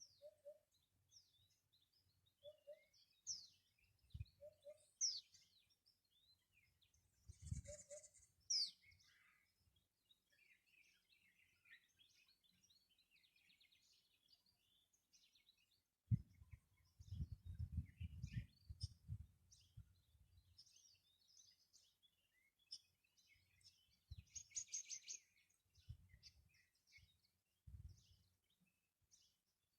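Several wild birds chirping and calling in short high notes, with a lower note repeated about once a second over the first several seconds. Low rumbling bumps come and go, the longest a few seconds past the middle.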